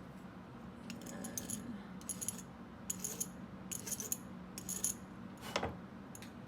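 Small metal pieces and tools clinking and rattling as they are handled on a workbench, in about five short bursts roughly a second apart, with a single sharper knock near the end.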